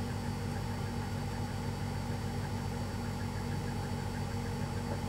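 Steady low buzzing hum.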